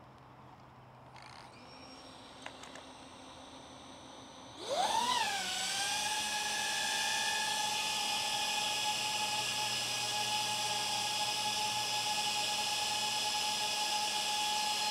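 DJI Avata fitted with an Axisflying 3.5-inch frame: its propellers spin up about four and a half seconds in with a quick rising whine, then hold a steady, high-pitched whine.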